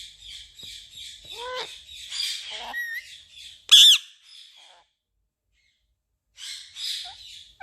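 Pet parrot chattering with curved whistles, then one loud, harsh squawk about four seconds in. After a short pause it chatters again near the end.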